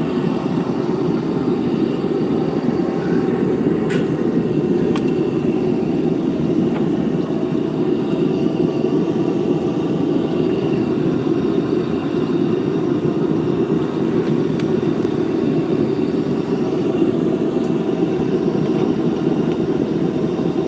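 A metal-melting furnace running with a steady, even roar from its burner or blower, with a couple of faint ticks about four and five seconds in.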